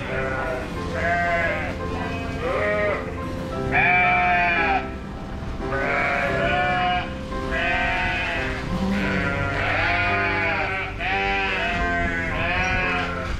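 A flock of ewes and lambs bleating over and over, the calls overlapping, as the lambs are driven away from their mothers for weaning. Background music with steady held notes plays underneath.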